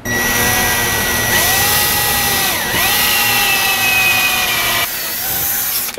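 Cordless drill running steadily as it bores a pilot hole through a solar panel's corner mount for a self-tapping screw. Its whine dips in pitch once about halfway through, then comes back up and goes a little quieter near the end.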